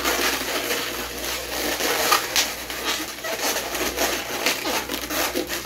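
Latex modelling balloons squeaking and rubbing against each other as they are twisted and pinched by hand, in irregular short bursts.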